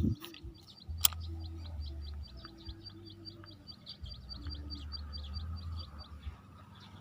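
A bird calling in a fast, even series of short, high chirps, about six a second, that stops about six seconds in. A single sharp click comes about a second in.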